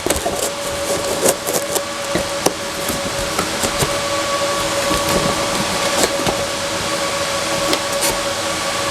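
Steady machine hum with a constant whine, over frequent clicks, knocks and rustling from computer hardware and packaging being handled.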